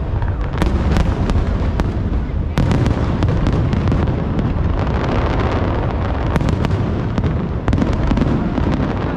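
Aerial fireworks display: a continuous low rumble of shell bursts with sharp cracks and pops coming in clusters.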